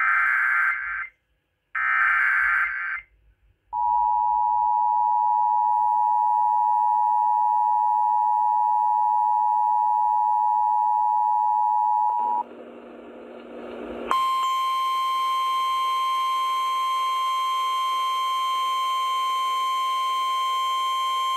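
Emergency Alert System broadcast tones on a radio station: two short, raspy SAME digital header bursts, then the two-tone EAS attention signal held steady for about eight and a half seconds. After a brief stretch of noise, a single steady weather-radio warning alarm tone sounds until near the end, signalling that a warning message follows.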